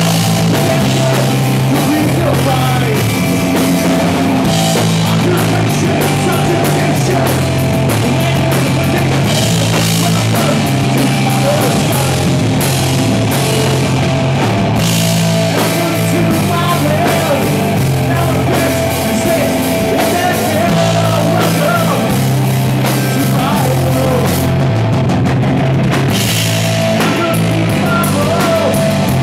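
Live rock band playing loud, with electric guitar, bass guitar and drum kit, the bass stepping between held notes under a steady beat.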